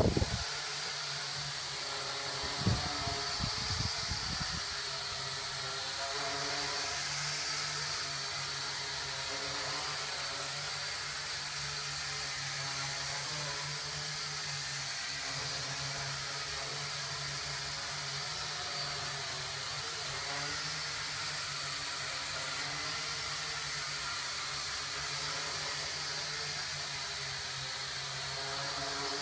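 Small H12C quadcopter's motors and propellers whirring steadily in flight, with a few brief knocks about three seconds in.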